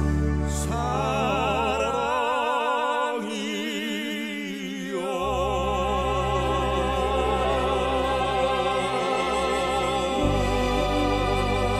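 Background music: a slow melody with heavy vibrato over a held bass, which drops out for a few seconds about two seconds in.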